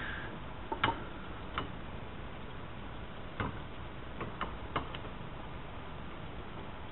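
Light clicks and taps of hard parts being handled as a Corvette pop-up headlight motor is fitted back onto its headlight housing bracket by hand. The clicks are scattered, with a quick cluster of several about three and a half to five seconds in.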